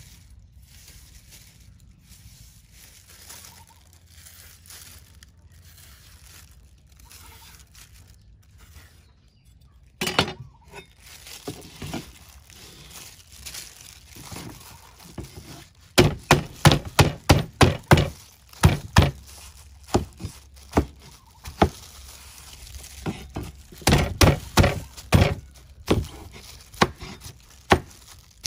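Knife chopping taro stalks on a wooden cutting board: quick runs of sharp knocks, starting about a third of the way in and loudest in the second half. Before that there is only faint outdoor background.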